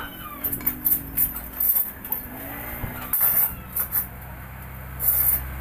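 Hand hammer striking the steel steering knuckle on a truck's I-beam front axle: a series of sharp, irregular metallic knocks. A steady low hum comes in about three seconds in.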